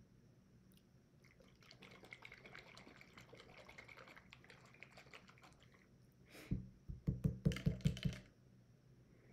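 A hot sauce bottle being handled and shaken, the sauce sloshing, with a long run of soft small clicks and rattles. About two-thirds in come about seven louder, sharp knocks in quick succession.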